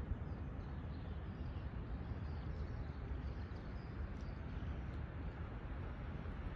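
Outdoor background: a steady low rumble with faint birdsong chirping above it.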